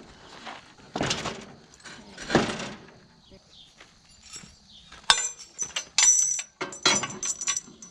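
Scuffing and knocking as the wooden shafts and cart frame are handled, then from about five seconds in a string of sharp metallic clinks and rattles as metal hardware is worked at the cart.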